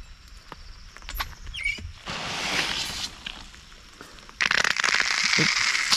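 Water turned on at a yard hydrant, rushing into an expandable garden hose as it starts to fill. There is a hiss about two seconds in, then a louder, sputtering hiss near the end.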